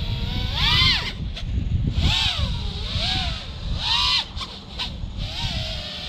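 FPV racing drone's brushless motors (2207.5-size, 1900KV) and 5-inch props whining, the pitch surging up and falling back about five times as the throttle is punched and released, over a steady low rumble of wind and prop wash.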